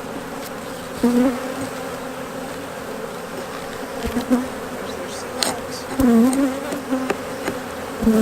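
Many honeybees buzzing around an open hive, a steady hum. Individual bees passing close swell louder and bend in pitch a few times, and there are a few light clicks.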